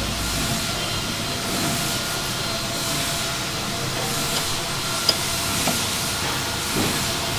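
Steady factory-floor machinery noise: a continuous hiss with faint steady whines underneath, and a single sharp click about five seconds in.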